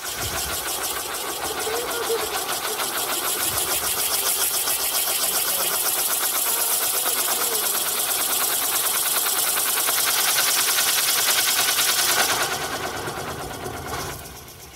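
Catherine wheel firework spinning, its burning jets giving a steady hiss with a rapid fluttering pulse. It dies down near the end.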